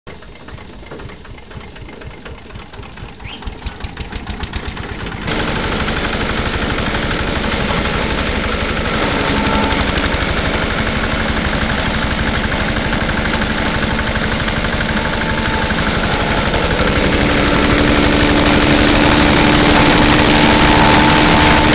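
Engine-driven straw chopper running: a pulsing engine beat at first, then from about five seconds in a much louder, steady running noise with a dense hiss over the engine drone as the machine chops straw.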